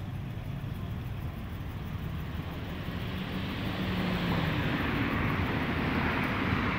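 Steady motor-vehicle rumble with a faint engine hum, growing louder about halfway through with a rising hiss, as of a vehicle drawing closer.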